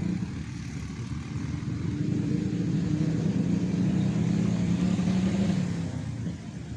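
Road traffic: a passing motor vehicle's engine running steadily over tyre and road noise. It grows louder about two seconds in and fades again near the end.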